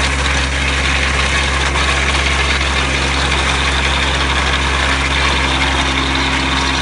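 Tractor engine running steadily under load, driving a Shakti stubble shaver whose rotor is cutting through crop stubble: a constant low hum under a steady hissing whir, with no change in speed.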